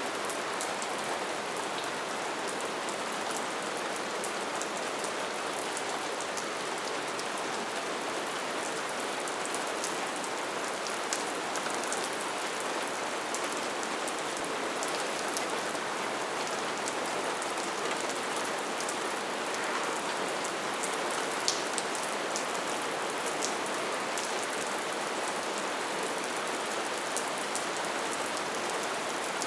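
Light, steady rain falling, an even hiss of rain with fine scattered drop ticks and no thunder.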